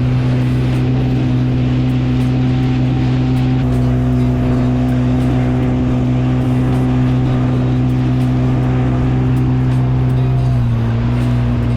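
Jet ski engine running at a steady cruising speed, holding an even pitch, which drops slightly about ten seconds in.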